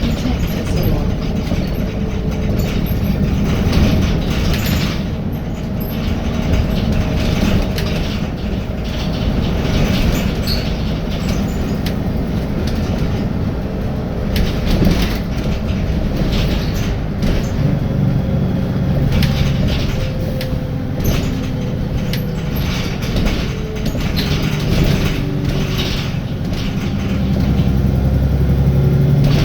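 Interior of a Wright Gemini 2 VDL DB300 double-decker bus on the move: the engine runs and its note rises and falls, over frequent clicks and rattles from the bodywork. This bus makes an unusual ticking noise when accelerating.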